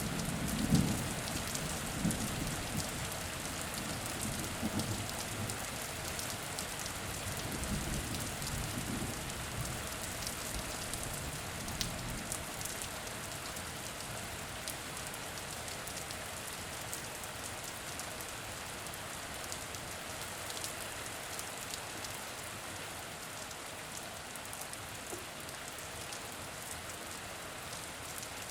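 Steady rain falling on a hard surface, with scattered drop ticks. The low rumble of a passing thunderclap fades out over the first several seconds.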